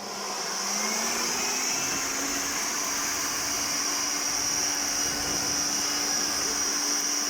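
Garden vacuum-blower used to blow air onto barbecue charcoal: its motor spins up over the first second, with a rising hum, then runs steadily with a high whine.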